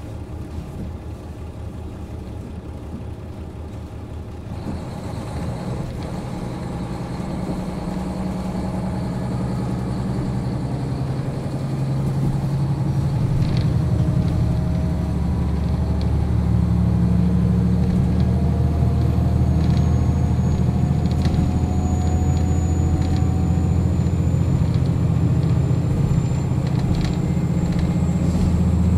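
JR Hokkaido KiHa 40 series diesel railcar's engine running while the car stands still: a steady low hum that grows louder over the first dozen seconds and then holds.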